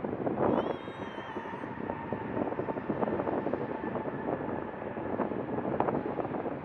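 Boeing 787 Dreamliner jet engines running: a steady rushing noise, with a faint steady whine coming in about two seconds in.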